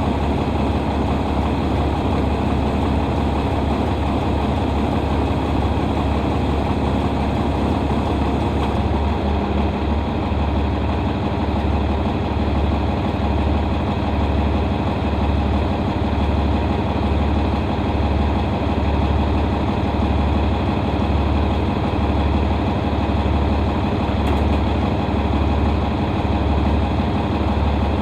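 Farm vehicle's diesel engine running steadily with a low, pulsing throb; its note shifts slightly about nine seconds in.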